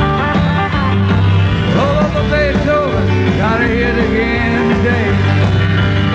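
Live rock and roll band music led by a grand piano, with sustained low bass notes under a lead line that bends up and down in pitch.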